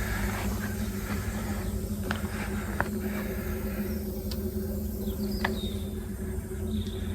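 Air compressor running with a steady low hum, feeding a spray gun during metal flake lacquer spraying, with a few short high chirps and squeaks over it.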